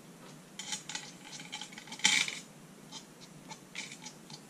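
Nozzle of a plastic tacky glue bottle scratching and tapping along the edge of a piece of card as glue is run around its edges: a string of small scratchy clicks, with one louder rasp about two seconds in.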